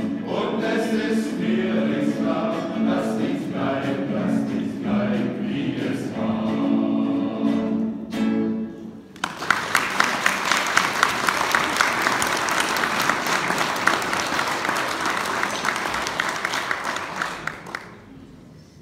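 Male choir singing, ending on a held chord about eight seconds in. After a brief pause the audience applauds for about eight seconds, the clapping fading out near the end.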